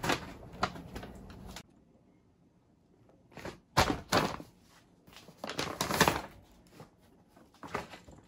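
A few scattered knocks and thuds from things being handled in a small room, with a near-silent gap of about two seconds early on.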